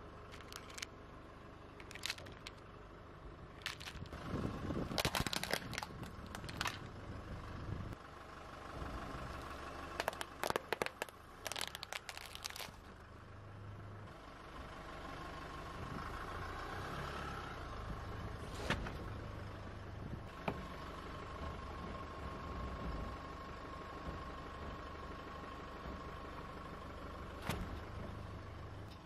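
Plastic toys cracking and crackling sharply as they are crushed under a car tyre, in a cluster of cracks over the first dozen seconds. After that a car engine runs slowly and steadily while the tyre rolls onto a blue ball and squashes it, with a few scattered clicks.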